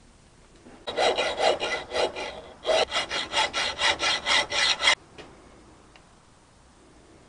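Hand hacksaw worked back and forth on the small motorcycle's carburetor held in a bench vise: quick scraping strokes, about four a second, in two runs of a second or two, stopping about five seconds in.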